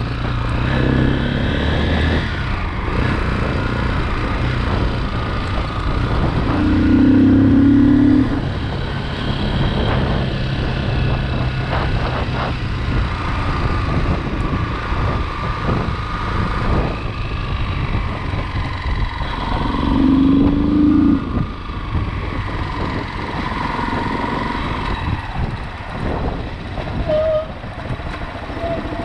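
Motocross motorcycle engine running as the bike is ridden. It gets louder twice, briefly, about seven and twenty seconds in.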